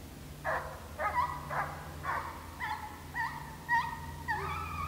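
Deer hounds baying, a string of bawling calls about two a second starting about half a second in: the pack is on a deer's track and running it.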